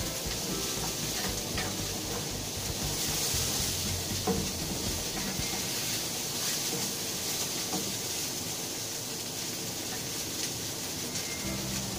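Green beans frying in a pan: a steady sizzling hiss, with a few light clicks of a utensil against the pan, one about four seconds in.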